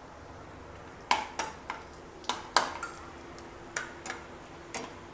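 Spatula stirring cashew nuts frying in ghee in a non-stick pan, knocking against the pan in sharp, irregular clicks that start about a second in.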